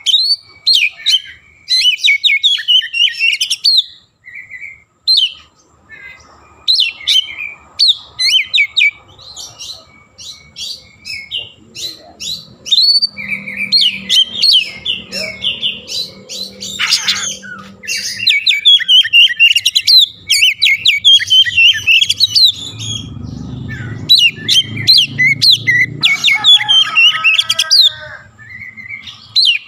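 Oriental magpie-robin singing loudly and continuously: fast, varied runs of chirps and whistles in phrases a few seconds long, broken by short pauses.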